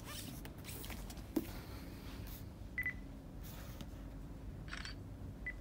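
Short electronic beeps from an OrCam MyEye camera clipped to eyeglasses, one about three seconds in and another near the end, amid the rustle of a book being taken from a shelf and opened. The beeps are the device's signal as it captures the page before reading it aloud.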